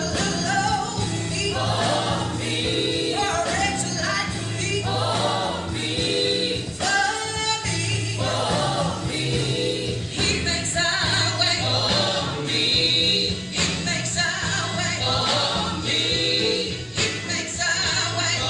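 Gospel group singing in harmony over instrumental accompaniment with a steady bass line.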